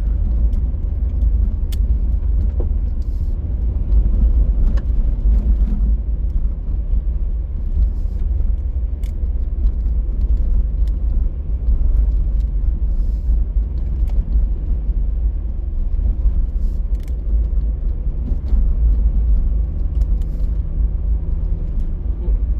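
A car driving, heard from inside the cabin: a steady low rumble of road and wind noise under the engine's hum, with occasional faint ticks.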